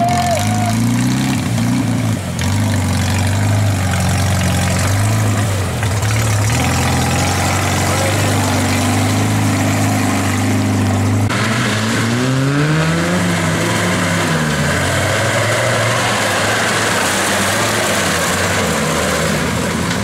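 Tractor engines working through a muddy course, the engine note rising and falling as the throttle is worked. About eleven seconds in, the sound changes to a second tractor, whose engine revs up and drops back.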